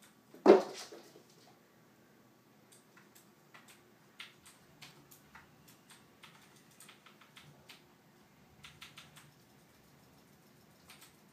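A cat landing from a high leap onto a hardwood floor with one loud thump about half a second in, followed by a scatter of light clicks and taps as its paws and claws scramble across the floor.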